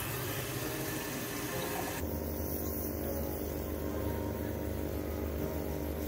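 Portable Jet Gun coil-cleaning sprayer at work: its pump motor hums steadily while it sprays water, the sound changing abruptly about two seconds in.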